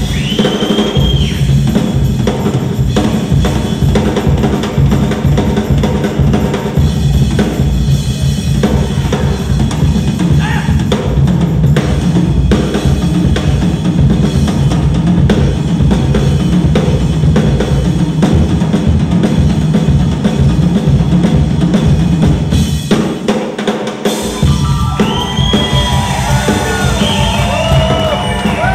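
A live drum-kit solo: fast, busy playing on the snare, toms, bass drum and cymbals. Near the end the drumming breaks off briefly and sliding high tones come in as the band returns.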